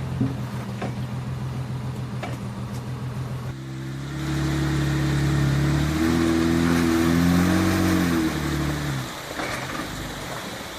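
Off-road vehicle's engine idling with a pulsing beat, then revving up sharply about three and a half seconds in and held under load for some five seconds, its pitch wavering, before dropping back to idle near the end.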